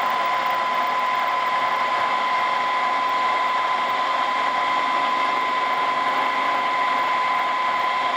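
Milling machine running with a Woodruff keyseat cutter being fed down into a shaft, cutting a keyseat. It gives a steady whine with a constant high tone.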